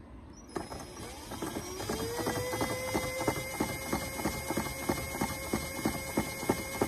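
Cordless drill driving an electric-fence polywire reel through a crank adapter. The drill whine starts about half a second in, rises briefly in pitch as it spins up, then holds steady, with a quick regular clicking as the reel turns.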